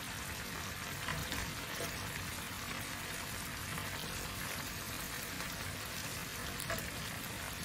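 Pork chops sizzling steadily in a bubbling honey glaze in a frying pan, with a few faint clicks.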